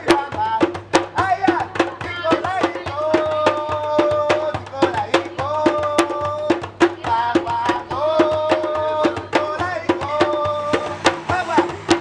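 Live street music: hand percussion or drums strike a steady rhythm under a melodic line of long, held notes.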